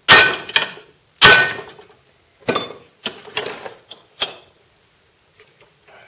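Metallic clanks from a steel steering tie rod being worked in a vise: two hard ringing strikes, then several lighter clinks, stopping about four and a half seconds in.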